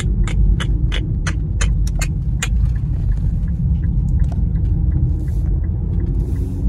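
Cabin noise of an Infiniti Q50 making a U-turn: a steady low rumble of engine and road, with the turn-signal indicator clicking about three times a second, loud for the first couple of seconds and then fainter. Near the end the engine note rises as the car pulls away.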